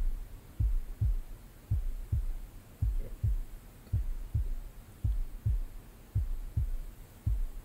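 Heartbeat sound effect: low, muffled thuds about twice a second, evenly paced, over a faint steady low hum.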